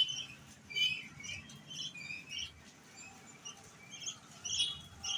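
Young bird chirping: short, high chirps in quick, irregular succession, with a pause in the middle and louder chirps again near the end.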